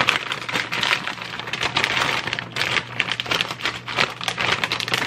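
Crinkling and crackling of a resealable plastic bag of frozen sausage patties as a hand digs inside to pull them out, a dense run of irregular rustles and clicks.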